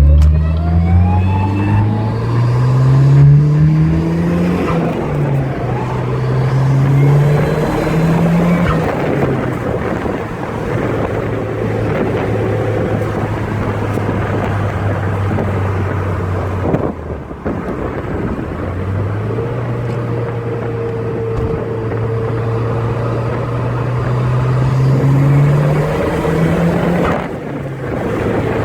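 Turbocharged car engine fitted with a BorgWarner EFR turbocharger, under way: it revs up through several gear pulls with breaks between them, holds a long steady cruise, and lets off briefly part way through before pulling again. A faint turbo whine rides over the engine note; the owner is unhappy with the whine.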